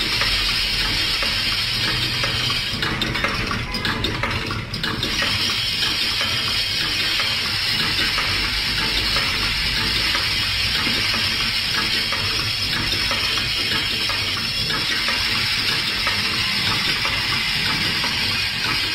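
Automatic transformer EE core assembly and taping machine running: a steady hissing, rattling noise with dense rapid clicking from its feeders and moving mechanisms.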